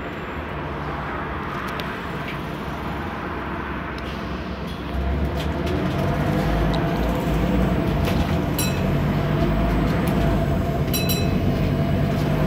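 Scania N230UD double-decker bus's five-cylinder diesel engine running under way, heard from the upper deck; it grows louder and deeper about five seconds in as the bus pulls harder. A couple of short high-pitched pings sound near the end.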